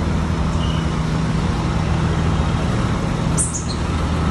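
Heavy truck's diesel engine running with a steady low drone while hauling a trailer loaded with crane counterweights, with a few brief high squeaks near the end.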